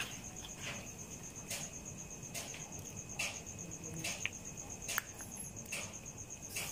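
Crickets trilling in a steady, high, rapidly pulsing tone. Short dry clicks come a little more often than once a second over it.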